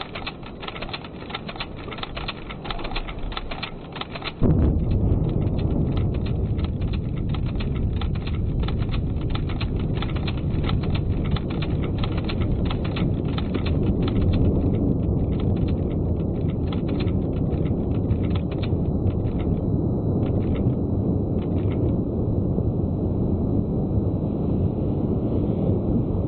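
Rock blast and the rockfall after it: a fast rattle of clicks as broken stone clatters down the rock face, then about four seconds in a sudden deep rumble that carries on steadily. The clatter of falling rock thins out toward the end.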